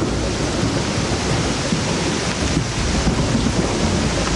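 Heavy tropical rain pouring down, a steady dense hiss with strong low-end rumble.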